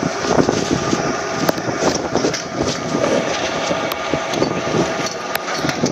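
Skis sliding and scraping over snow, a continuous uneven scraping with a few sharp clicks.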